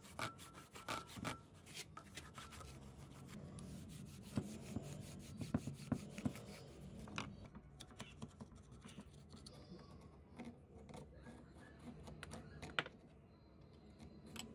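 A screwdriver and metal rod scraping, clicking and tapping against the rusted shaft and shuttle parts inside an old sewing machine's arm, with a rag rubbing over the metal near the start. The sharp taps cluster in the middle, with one loud tap near the end.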